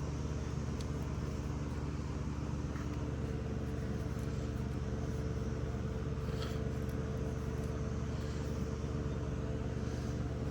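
A steady low mechanical hum with a few faint brief clicks.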